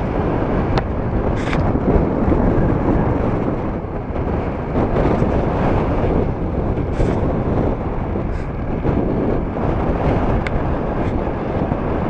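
Storm wind buffeting the microphone with a steady, heavy rumble, over small wind-driven waves breaking and washing onto a gravel lake shore.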